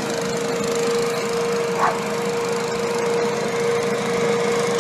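Walk-behind wheeled leaf blower running steadily, a constant engine drone with a held whine. A single short dog bark about two seconds in.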